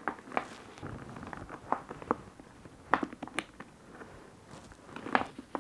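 Handling sounds of a leather Hermès Birkin 25 handbag being closed up: scattered light clicks and taps as the flap and straps are folded down and the metal turnlock clasp is fastened.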